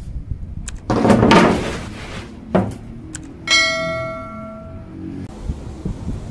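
Ribbed steel bar scraping and clattering on a metal worktable, knocking once, then clanking against it with a clear metallic ring that dies away over about a second and a half.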